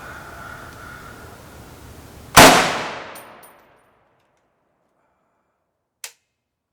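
One loud rifle shot from a Riley Defense RAK 308-C, an AK-pattern rifle in .308, about two seconds in, its report dying away over about a second. A short faint click follows near the end.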